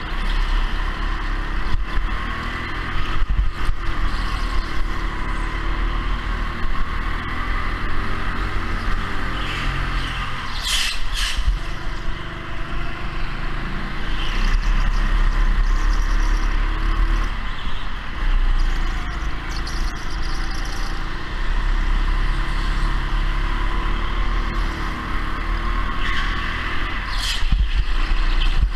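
Go-kart running at speed around a kart track, its pitch rising and falling as it brakes and accelerates through the corners. Two short high-pitched screeches cut in, one about ten seconds in and one near the end.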